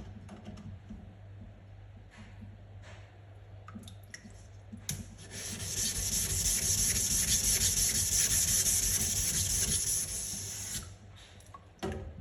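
Sugimoto kitchen knife being sharpened on a whetstone, blade scraping over the stone. A few light scrapes at first, then about halfway through a louder, steady grinding hiss for around five seconds that drops away, with one sharp scrape near the end.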